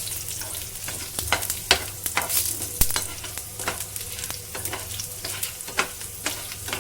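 Garlic cloves and whole spices sizzling in hot oil in a frying pan while being stirred, with frequent sharp clicks and scrapes of the spatula against the pan.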